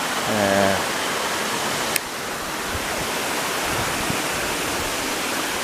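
Steady rush of falling water from the Iwai no Taki waterfall. A brief voice sounds about half a second in, and a sharp click about two seconds in is followed by a slight drop in level.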